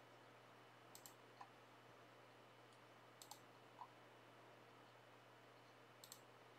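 Three computer mouse clicks, each a quick press-and-release pair of ticks, about one, three and six seconds in, with a few fainter ticks between them. Underneath is a faint steady hum and otherwise near silence.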